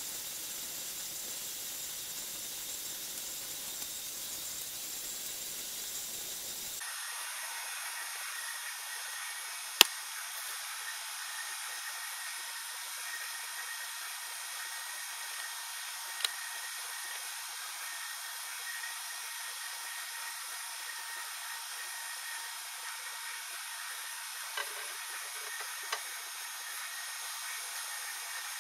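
Steady hiss from the vacuum setup evacuating the bell jar, with one sharp click about ten seconds in and a few fainter clicks later.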